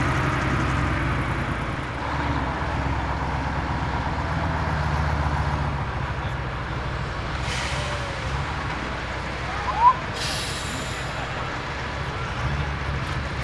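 KrAZ-255 6x6 truck's V8 diesel engine running at low revs, its level swelling and easing. It is broken by two short hisses of air, about halfway through and again some two seconds later.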